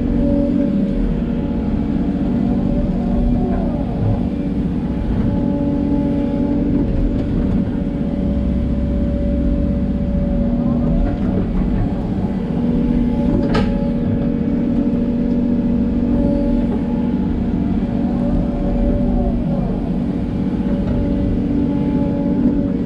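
Hidromek 140LC excavator's diesel engine running steadily under working load, with faint hydraulic whine that rises and falls as the arm moves. A single sharp knock comes about two-thirds of the way in.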